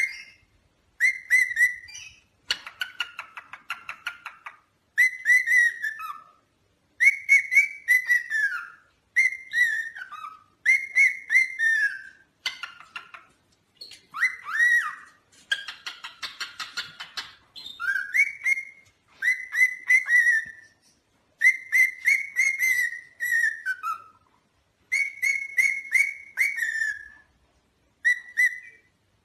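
Parrot calling in short, clear whistled phrases near one pitch, some sliding up and some falling away, repeated every second or two. Twice it breaks into a longer harsh, raspy chatter, once a couple of seconds in and once about halfway.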